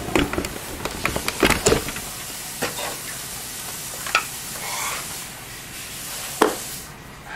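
Hands handling SATA cables inside a computer tower: rustling with scattered plastic clicks and knocks, the loudest a sharp click about six and a half seconds in.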